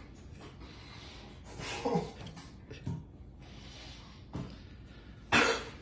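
A man coughing and gagging in several short hacking bursts, the loudest near the end: he is choking on a gummy worm and peanut butter stuck in his throat.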